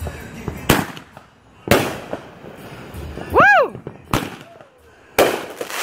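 Fireworks shells bursting in a finale: four loud bangs, each with a short rumbling tail. Midway there is a brief high sound that rises and falls in pitch.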